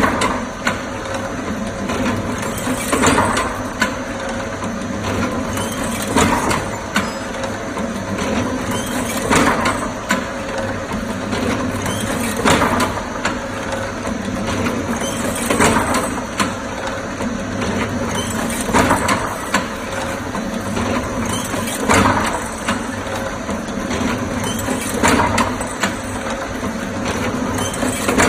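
Automatic hanger molding machine running over a steady hum, with a short burst of clatter and hiss about every three seconds as it works through its cycles.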